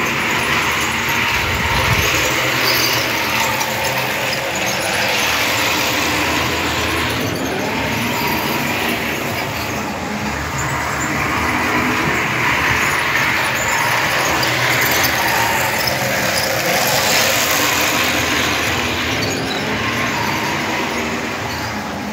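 Model train running on the layout's track, a steady whirring of motor and wheels on rails with a higher squealing edge that swells and eases several times.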